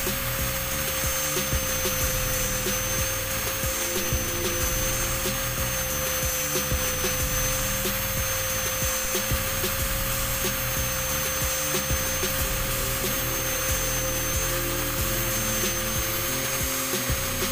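Carburetor part being smoothed down to cure a fuel leak: continuous rough rubbing over a steady whine. The whine runs unchanged throughout.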